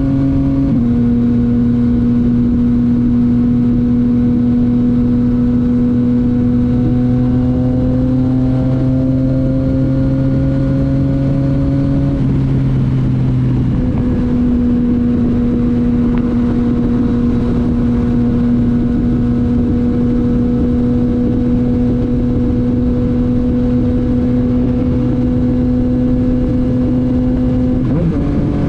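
Yamaha MT-09's three-cylinder engine through a titanium Akrapovic exhaust, held at a fairly steady engine speed under a constant rush of wind. The engine note drops about a second in, creeps slowly upward, changes again around the middle, then holds steady.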